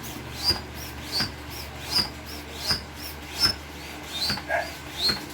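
Manual air pump inflating an airbed, worked in steady strokes about three every two seconds, each stroke giving a short squeak.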